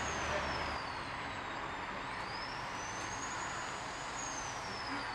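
Steady rushing background noise with a faint thin high tone that slides down, rises again about two seconds in, holds, and slides down once more near the end.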